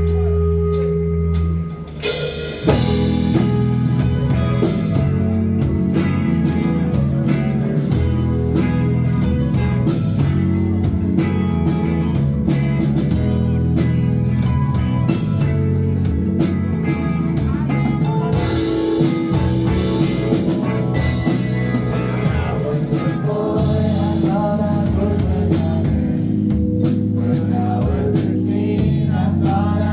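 Live rock band playing a song: a held chord on guitar and bass, then about two and a half seconds in the drum kit and full band come in, with a singer's voice over them.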